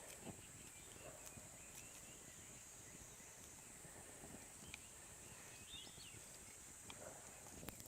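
Quiet outdoor ambience: a steady high-pitched insect drone, with a few faint bird chirps and occasional soft clicks.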